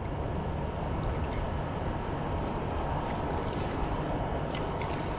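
Steady rush of flowing river water, with a few short, sharp splashy sounds in the second half.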